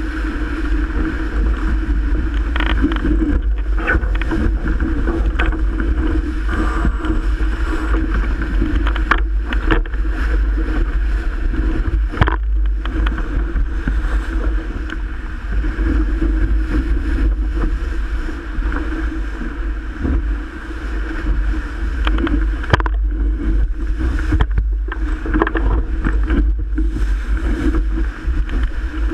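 Strong wind buffeting the microphone over water rushing along the hull of a Melges 24 sailboat sailing fast in 30+ knot wind. A heavy, steady rumble runs under it, broken by occasional sharp slaps and splashes.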